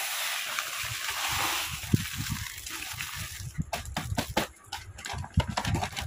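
Dried ingredients poured out of a packet with a steady hiss for about two seconds, then packets crinkling and light knocks as they are unwrapped and handled.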